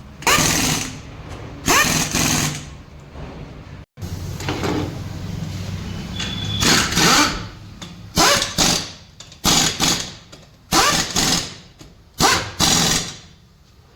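Pneumatic impact wrench running the wheel nuts onto a car wheel in a series of short bursts, each under a second long.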